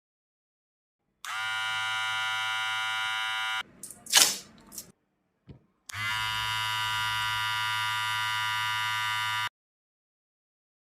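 WAHL Senior cordless hair clipper switched on and buzzing steadily twice, with a short burst of handling noise between the two runs. This is the test run after it was serviced for a noise fault.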